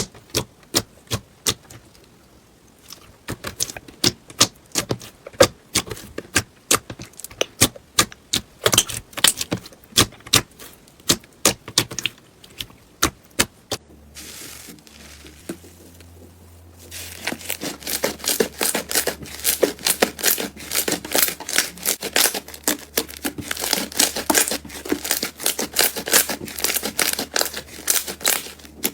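Slime being squeezed and poked by hand, making sharp clicking pops a few times a second; a little past halfway the sound changes to a dense, continuous crackle.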